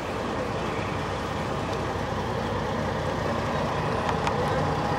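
Fire engine's diesel engine running steadily with a low drone, getting a little louder near the end.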